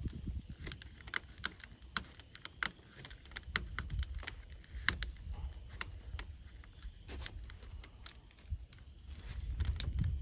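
Irregular sharp clicks and taps from hands working a rubber-gasketed drain-pipe joint, several a second, over a low rumble.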